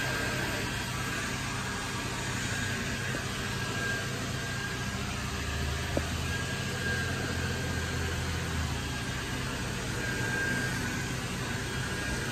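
A steady low machine hum with an even hiss throughout, and a single faint click about halfway through.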